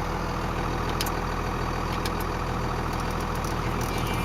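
Dodge Ram's Cummins 5.9 L inline-six turbo diesel idling steadily, heard from inside the cab.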